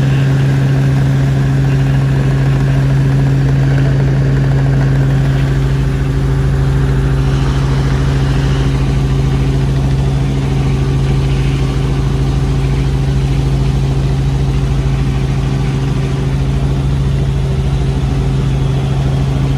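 Helicopter in flight heard from inside the cabin: a loud, steady drone of engine and rotor noise over a constant low hum.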